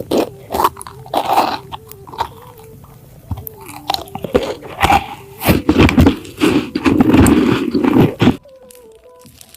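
Close-miked mouth eating: crisp crackling bites and chewing of crunchy food, with the loudest, densest crunching in the last few seconds before it stops abruptly about 8 seconds in.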